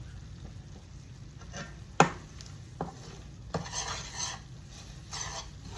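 A utensil stirring and scraping flour and grease in a pan to make a thick gravy, with a few sharp knocks against the pan about two, three and three and a half seconds in.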